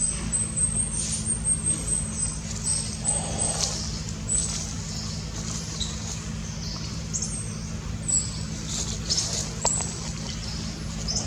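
Steady low rumble of distant road traffic under a small bird's high, thin chirps, which repeat quickly, several a second, for the first couple of seconds and then come only now and then.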